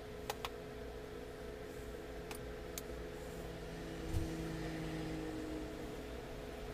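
Steady machine hum, with a few light clicks in the first three seconds and a soft thump about four seconds in.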